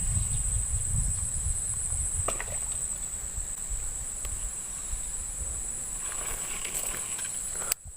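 Insects trilling steadily at a high pitch, over low rumbling noise and a few faint clicks. The sound cuts out briefly near the end.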